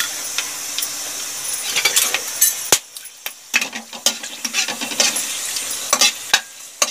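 Whole spices sizzling in hot oil in a pan, stirred with a spoon that clicks against the pan now and then. The sizzle drops quieter about three seconds in.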